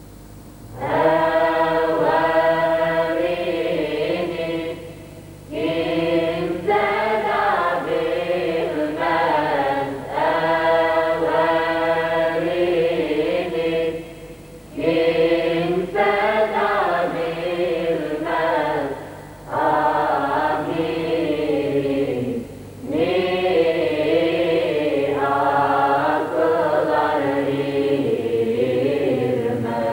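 Choir singing an ilahija, a Bosnian Islamic devotional song, unaccompanied. It sings in melodic phrases of a few seconds each, with short breaks between them.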